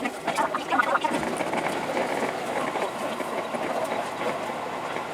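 Seibu Shinjuku Line commuter train running, a steady rail noise, with brief voice-like sounds in the first second.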